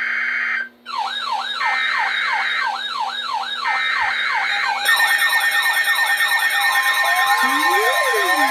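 Emergency Alert System alert for a severe thunderstorm warning. Three bursts of screeching data tones play over a fast yelping siren. From about five seconds in, more steady tones pile on, and near the end a single steady alert tone and slower, deeper wailing sirens join in.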